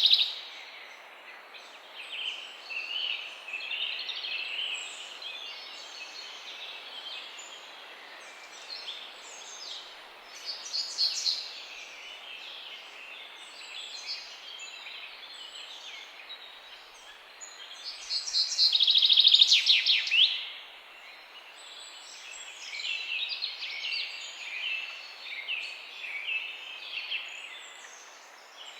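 A morning chorus of several songbirds chirping and trilling over a faint outdoor hiss, with a loud rapid trill nearer the microphone about eighteen seconds in.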